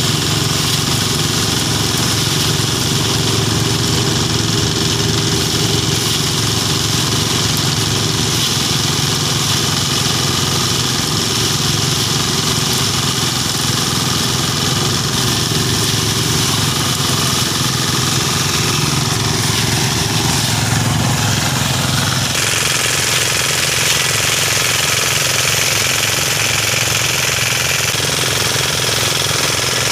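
Engine-driven rice thresher running steadily as rice bundles are fed in, a loud mechanical hum with the threshing drum rattling. About 22 seconds in the sound changes abruptly, the deep engine hum dropping away and leaving a higher, rattling noise.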